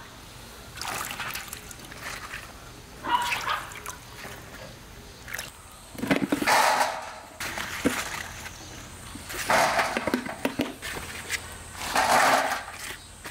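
Water splashing and sloshing in short bursts every two to three seconds.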